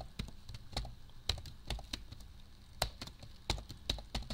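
Typing on a computer keyboard: uneven clicking keystrokes, about three or four a second.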